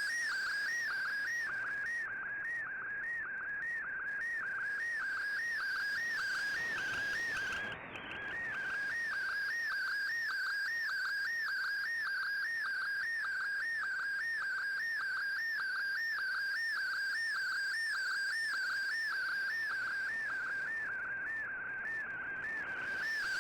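Shortwave digital-mode data signal from a communications receiver: a steady whistling tone that warbles evenly a couple of times a second, over a faint background hiss.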